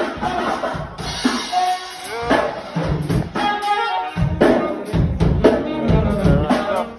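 Music with a drum-kit beat and heavy bass.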